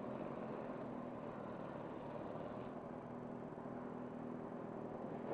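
Kawasaki Z1000's inline-four engine idling steadily.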